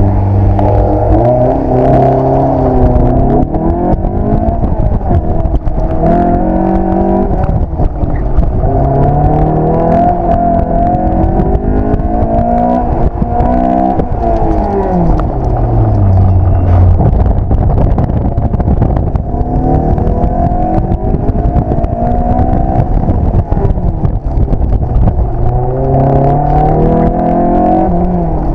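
Honda S2000's four-cylinder engine revving hard on an autocross run, heard from the open cockpit: the pitch climbs again and again, drops at each gear change and falls away under braking.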